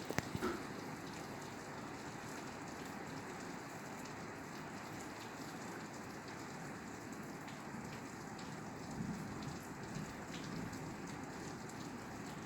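Steady rain falling on a roof, an even patter with a few louder individual drops striking just at the start.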